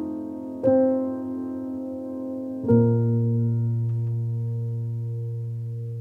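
Slow solo piano music: a chord struck about a second in and left to ring, then another with a low bass note a little under halfway through, held and fading to the end.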